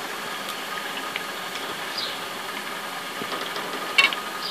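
Breadcrumb-coated rolls deep-frying in hot oil, a steady sizzle. About four seconds in there are a few sharp metallic clinks of the mesh skimmer against the aluminium pan as the fried rolls are lifted out.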